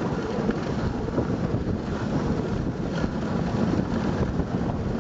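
Steady rushing noise of a dog sled moving over snow, with its runners on the snow and wind buffeting the microphone.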